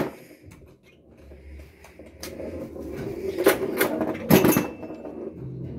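Briarwood Demolition Classic home pinball machine in play: the ball rolling across the playfield, with a few sharp clacks about two seconds in, at three and a half seconds, and a quick cluster near four and a half seconds.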